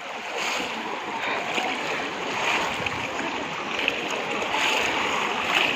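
Shallow water splashing and sloshing steadily as many people wade through it and plunge bamboo cone fishing traps, with small splashes standing out here and there.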